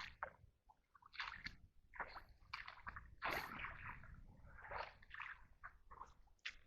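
Water sloshing and splashing in irregular bursts, from wading and dragging a seine net through shallow water.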